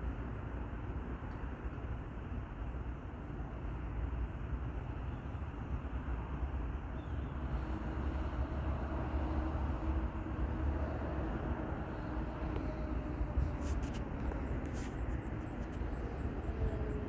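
Steady low outdoor rumble of distant traffic, with a faint hum that swells and fades in the middle, like a passing vehicle, and a few light clicks near the end.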